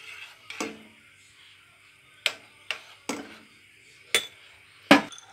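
A spoon and a ceramic bowl clinking against a metal saucepan while biscuit crumbs are tipped into milk and stirred. There are about six sharp knocks, the loudest near the end.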